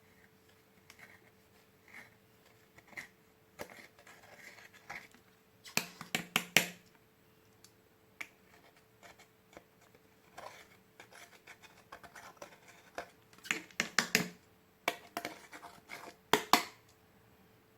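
Slime-making ASMR handling sounds: scattered sharp clicks and short scratchy crackles in clusters, loudest about six seconds in, around fourteen seconds and near the end, over a faint steady hum.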